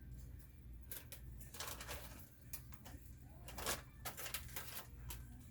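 Parts and packaging being handled: irregular rustling and light clatter in short bursts, the loudest a little past the middle.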